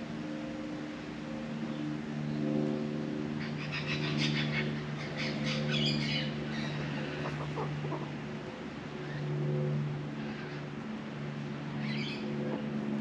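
Australian magpie calling: a quick run of rapid chattering notes for about three seconds a few seconds in, and a shorter burst near the end. Under it runs a steady low hum.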